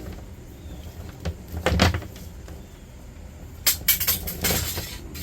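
Scrap wire being handled and dropped onto sorting piles: a short burst of knocks and rustling a little over a second in, and another cluster near four seconds, over a low steady hum.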